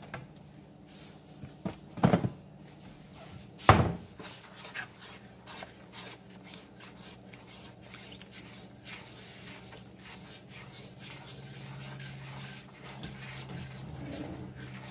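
A spoon stirring cream sauce in a metal pan, with faint scrapes and taps against the pan, over a steady low hum. Two sharp knocks, about two and four seconds in, are the loudest sounds.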